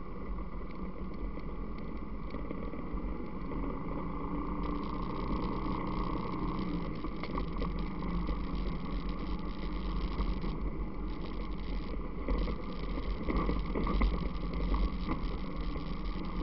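ATV engine running with the throttle rising and easing, over a rough, muddy trail. Knocks and rattles from the bumps come throughout and are heaviest about two-thirds of the way in.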